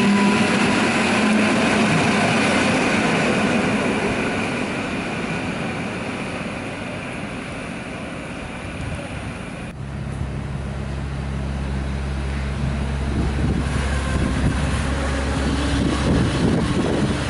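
Koleje Mazowieckie electric multiple unit running along the platform, its rolling noise fading away. About ten seconds in the sound cuts to PKP Intercity passenger coaches rolling past, with a steady low hum under the wheel noise.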